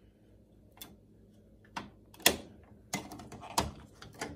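Plastic child-safety lock parts being handled, giving about six sharp clicks and knocks, the loudest a little over two seconds in.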